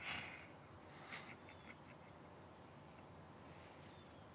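Faint outdoor ambience: a steady high-pitched insect drone, with a brief soft noise at the very start and a few short chirps about a second in.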